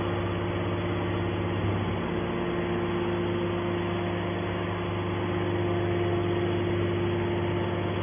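Steady hum of a large hydraulic scrap metal baler's pump and electric motor running, with several held tones, while the hydraulic cylinders swing the baler's top lid open.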